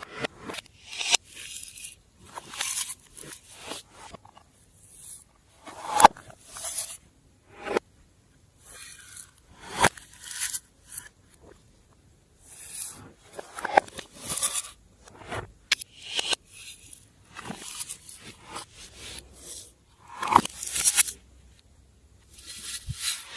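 Hands working slime-making materials: a run of irregular scraping and crunching handling sounds, broken by a few sharp clicks.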